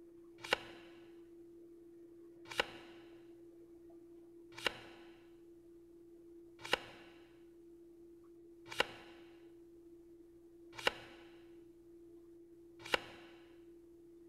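A sharp click with a short ringing tail, repeated about every two seconds, seven times, over a faint steady hum. Each click marks a playing card being flashed on screen in a card-recognition test.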